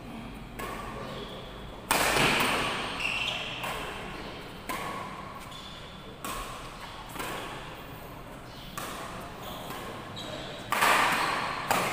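Badminton rackets striking a shuttlecock during a doubles rally: sharp cracks about once a second, each echoing in the big hall, loudest about two seconds in and again near the end.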